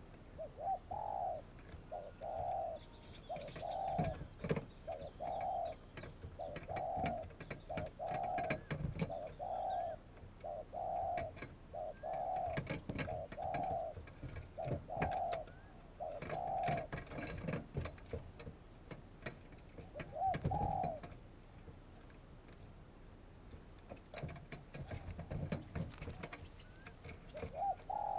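Spotted dove cooing in a steady series of short notes, about one a second. The series stops, one lone coo follows a few seconds later, and the cooing starts again near the end. Faint clicks and low thumps sound underneath.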